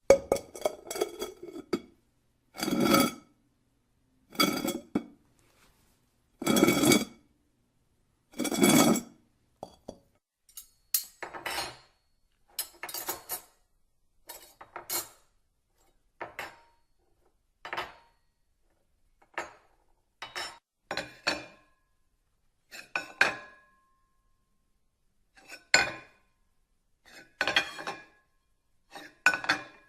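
Dishes and cutlery clinking and clattering in a series of separate handlings with short silences between them. The first few, about every two seconds, are heavier and ring on; later come many shorter, brighter clinks.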